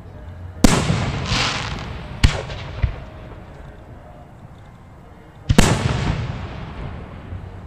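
Aerial fireworks shells bursting at close range: a loud bang under a second in, another about two seconds in with a smaller pop just after, and a fourth about five and a half seconds in, each trailing off slowly.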